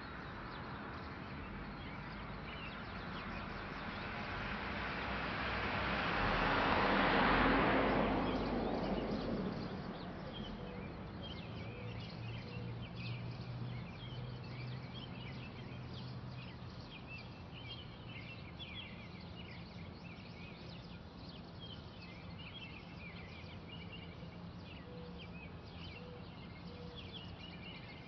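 Outdoor ambience: a passing vehicle's noise swells and fades, loudest about seven seconds in, then birds chirp with many short, repeated calls through the rest.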